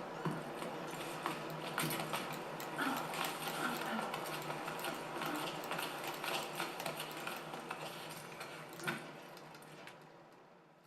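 Typing on a Lofree Flow low-profile mechanical keyboard: rapid, irregular key clicks and clacks that fade out near the end.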